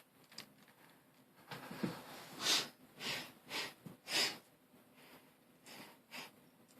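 A person sniffling through a runny nose: a series of short, noisy sniffs spread over several seconds.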